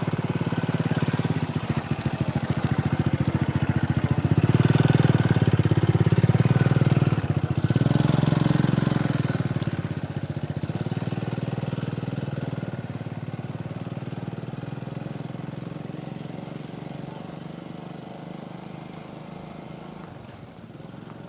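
A small engine running nearby, its pitch rising and falling as it grows loudest a few seconds in, then fading slowly as it moves away.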